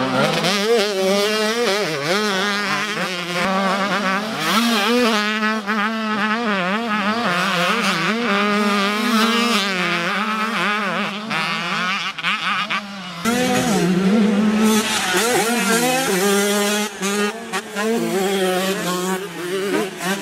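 Motocross dirt bike engines revving hard, their pitch swinging up and down quickly as the throttle opens and closes through corners and jumps, over a steadier lower engine note. The sound changes abruptly about 13 seconds in.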